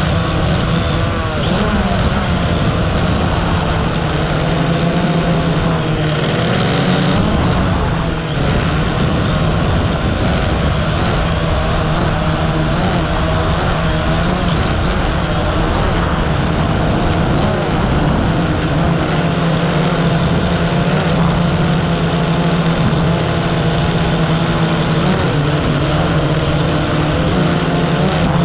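Quadcopter drone's electric motors and propellers buzzing steadily, heard up close from the camera carried on the drone, the pitch wavering slightly as it manoeuvres.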